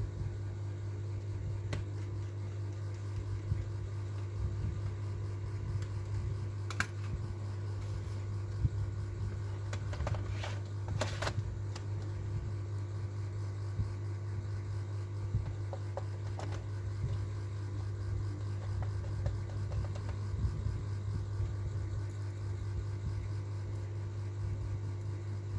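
Steady low mechanical hum, like a fan or small motor, with a few faint clicks and a brief rustle about ten seconds in.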